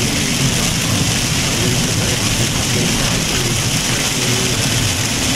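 Heavy rain beating on a car's roof and windshield, heard from inside the cabin while driving, as a steady, dense hiss.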